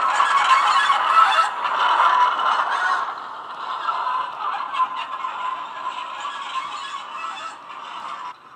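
Class 08 diesel shunter engine sound played by a model locomotive's Loksound sound decoder through its small bass-enhanced speaker, mixed with the rattle of the model wagons on the track. It fades as the train moves away and cuts off shortly before the end.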